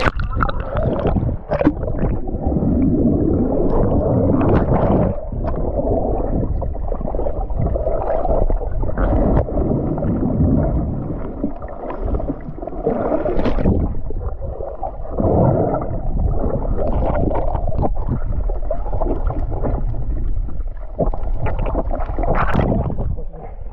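Muffled gurgling and rushing of water and bubbles around a submerged camera as swimmers move through the water, with a splash as the camera breaks the surface near the end.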